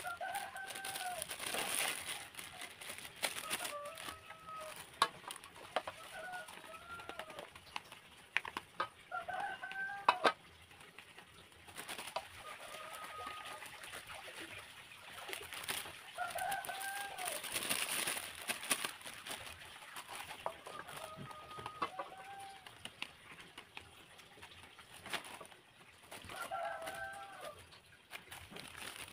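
Chickens calling every few seconds, short arched clucks and squawks. Scattered sharp clicks and knocks, the loudest about ten seconds in, come from hands handling plastic packing.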